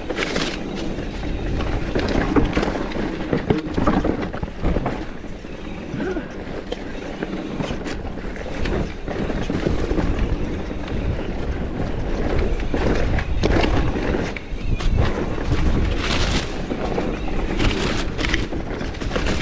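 Santa Cruz Megatower full-suspension mountain bike ridden down a dry, dusty dirt singletrack: tyres rolling and crunching over the trail, with the bike rattling and knocking over bumps and roots, busier near the end.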